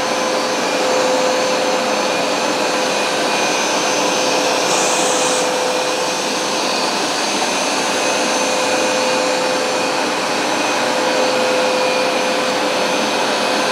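Hoover SmartWash Pet automatic carpet cleaner running steadily: its suction motor gives a constant whine over a dense airflow hiss. There is a brief higher hiss about five seconds in.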